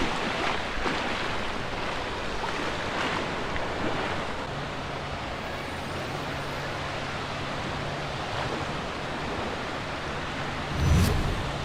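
Gulf surf washing onto the beach, with wind buffeting the microphone. A faint steady low hum comes in about halfway through, and a short thump near the end is the loudest moment.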